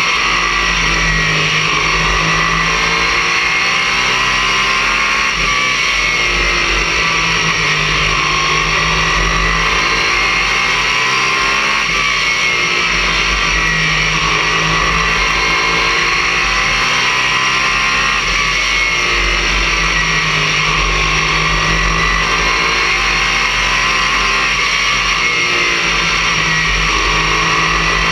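Race car engine running hard at racing speed, heard from inside the cockpit. It holds a loud, steady drone whose pitch rises and falls in a repeating cycle every six seconds or so.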